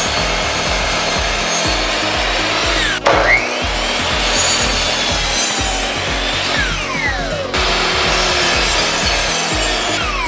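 Electric miter saw running and cutting through pine boards. Its motor whine rises as it spins up about three seconds in and falls as it winds down between cuts. The blade is dull and smokes the wood as it cuts.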